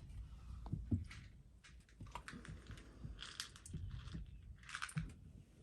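A puppy crunching and chewing treats: scattered small clicks and crunches, with two short rustles about three and about five seconds in.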